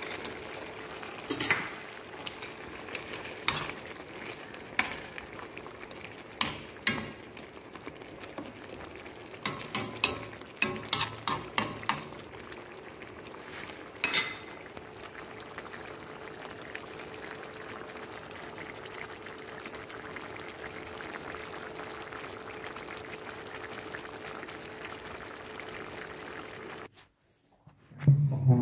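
Meatball and potato stew simmering and bubbling in a wok, with a faint steady hum underneath. Sharp knocks and clinks against the pan come through the first half as okra is added and the stew is worked, clustered about ten seconds in. The sound cuts off abruptly near the end.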